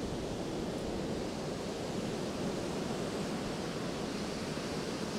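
Surf breaking along the beach in a rough, lumpy sea: a steady, even rush of waves.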